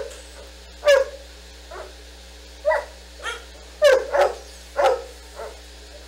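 A dog barking repeatedly: about nine short, sharp barks at uneven intervals, some coming in quick pairs.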